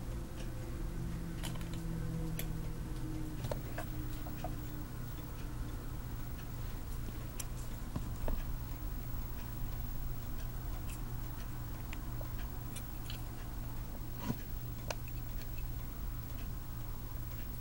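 Scattered, irregular sharp clicks over a steady low hum.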